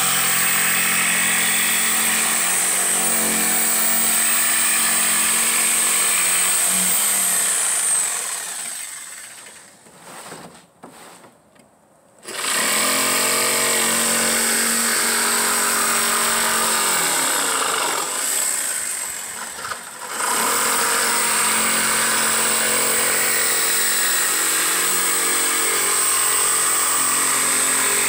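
Corded jigsaw running and cutting through a thin plywood sheet. About eight seconds in it winds down and stops for a few seconds, then starts again. Near twenty seconds it briefly slows before running at full speed to the end.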